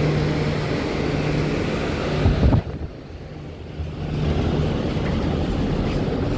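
Steady mechanical drone of airport machinery in a jet bridge, with a low held hum. About two and a half seconds in there is a rumbling bump, then the sound goes muffled and quieter for about a second before the drone returns.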